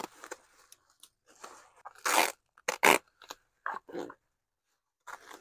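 Bubble wrap crinkling and rustling as hands pull it apart, in a string of irregular crackly bursts, loudest about two and three seconds in.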